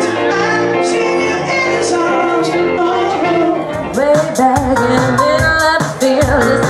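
Pop music with singing. About four seconds in it switches to another song with a steady, driving drum beat.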